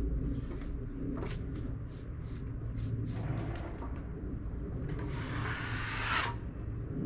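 Wood-Mizer LT35 portable sawmill's engine running steadily, with a series of short knocks through the middle and a scraping rush about five seconds in.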